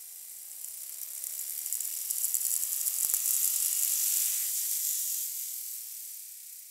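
Knock-sensor audio from a stock 4.8 L LS V8 making a full-throttle dyno pull on too much ignition timing. A hissing buzz with engine tones climbing in pitch as the revs rise, a burst of sharp clicks in the middle that are detonation knock, with the engine on the verge of blowing up, then fading near the end as the pull ends.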